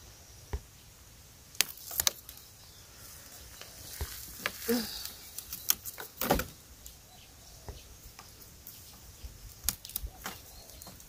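Scattered dry crackles and snaps of burnt bamboo leaves and stems being stepped on and pushed through, the sharpest snap a little past halfway. A short voiced murmur about four and a half seconds in.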